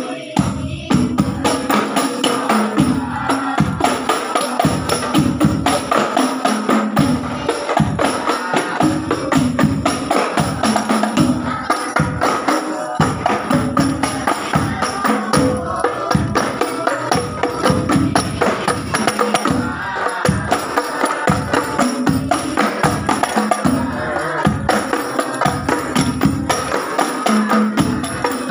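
Hadrah percussion ensemble playing a steady, driving rhythm: rebana frame drums and a hand drum slapped over deep strokes on a large bass drum, with tambourine-like jingles.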